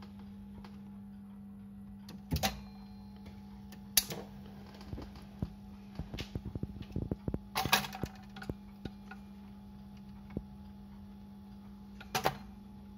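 Automatic record changer of a Siemens radio-gramophone working through its change cycle, started by pressing its button: irregular mechanical clicks and clunks, a run of small ticks in the middle, and a sharp clack near the end as the next record drops onto the platter. A steady low hum runs underneath.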